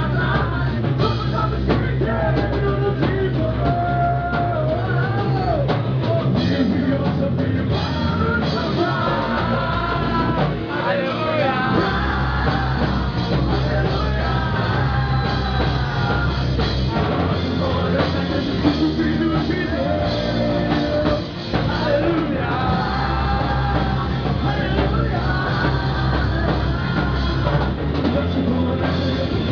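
Rock band playing, with drum kit and a sung lead vocal over dense, loud instrumentation.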